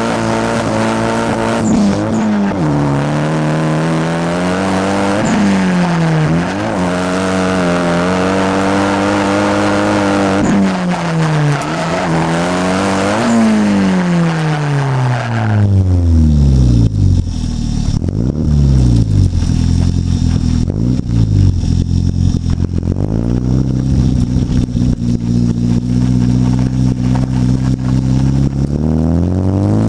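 Nissan SR20DET turbocharged 2.0-litre inline-four, heard on an exhaust mic, revving up and down over and over as the car is driven sideways. About halfway through the revs fall away in one long drop to a low, steady rumble, then climb again near the end.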